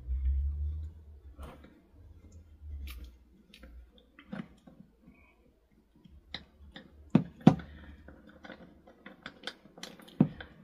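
Scattered small clicks and knocks as the parts of an Evolution power file belt sander are handled and a spring-loaded screw on its belt arm is unscrewed until the part comes free. A low rumble in the first second, two sharper clicks about seven seconds in and another near the end.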